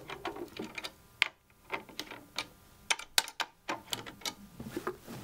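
Drum key turning the tension rods of a tom-tom's batter head: a string of irregular metallic clicks and ticks as the head is slackened right down to zero tension to be reseated.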